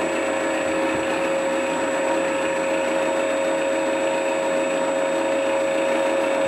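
Electronic sound module in a radio-controlled Yak-12 model plane playing a simulated aircraft engine idling steadily through its speaker.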